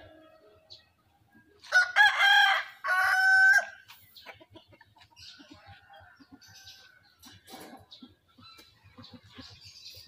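A rooster crowing once, a loud call of about two seconds with a short break in the middle, starting about two seconds in.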